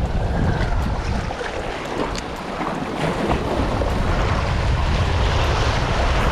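Wind buffeting the microphone over waves washing against the jetty rocks, growing louder about three seconds in.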